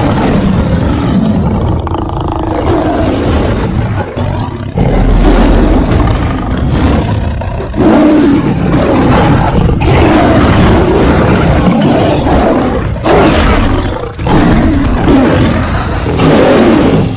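Big-cat creature sound effect: long, loud growling roars and snarls, one after another with a few brief breaks, built from layered lion, tiger and leopard roars.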